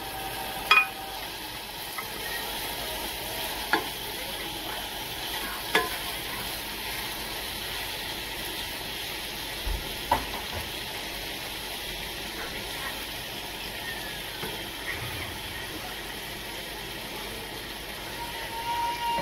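Chicken pieces searing in butter in a nonstick frying pan: a steady sizzle, with a few sharp knocks about a second in and again around 4, 6 and 10 seconds as the pieces are shifted with a wooden spatula. The chicken is being browned briefly before it goes into the oven.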